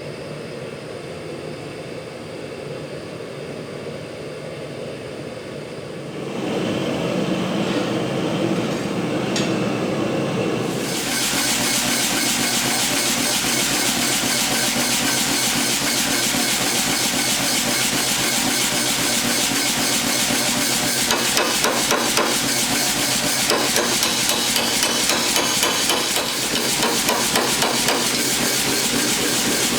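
A steady low rushing noise that gets louder about six seconds in. From about eleven seconds in comes a dense, continuous run of fast hammer blows on mild steel bar being forged.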